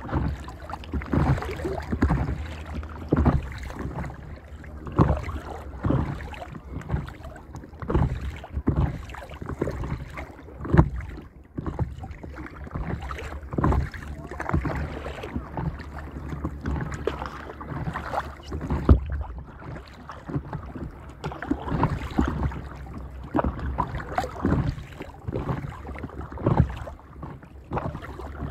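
Water splashing and lapping against the hull of a paddleboard as it is paddled across rippled water, in irregular splashes about every second or two. Under the splashes runs a low, steady rumble of wind on the microphone.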